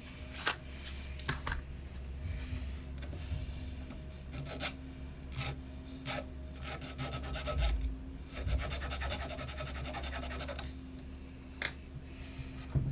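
A small metal hand file scraping on the Dremel's dirty brush-holder contact, with scattered clicks of tool handling. A dense run of quick, even file strokes comes about seven seconds in and lasts some three seconds.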